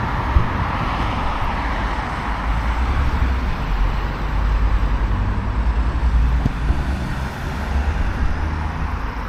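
Steady road traffic on a busy street: an even wash of vehicles running by over a continuous low rumble.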